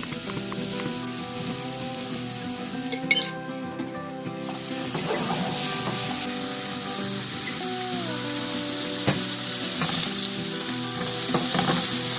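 Food sizzling in hot oil in a pan while being stirred, with a few sharp clacks of a utensil against the pan. The loudest clack comes about three seconds in, and the sizzle grows louder after it.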